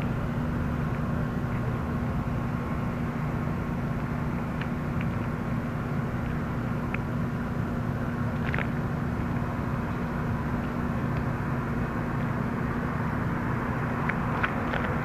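Steady outdoor background noise with a constant low hum, and a few short faint clicks, the clearest about eight and a half seconds in and a cluster near the end.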